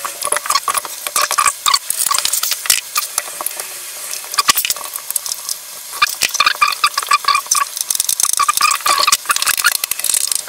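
Rapid scraping, rattling and clicking of plastic and metal as a 27-inch LG monitor's back is worked onto the VESA mounting plate of a gas-spring monitor arm. The handling noise comes in two busy stretches with a calmer patch between them, about four to six seconds in.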